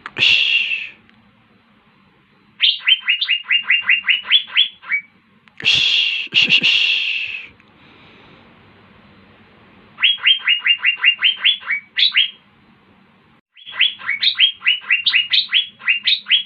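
Asian fairy-bluebird (cucak biru) singing: runs of short, quick, rising whistled notes, about eight a second, broken by a louder harsh call at the very start and two more about six seconds in.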